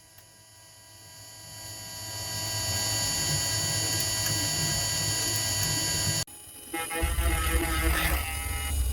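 CNC milling machine running, a steady machine whine that swells up over the first few seconds and holds, then stops abruptly at a cut just after six seconds. A louder sound with a deep hum follows.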